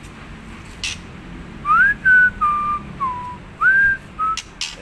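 Male white-rumped shama (murai batu) whistling a slow phrase of about six clear notes: a rising slide, then held notes stepping lower, another rising slide and a short final note. A sharp click about a second in and another near the end.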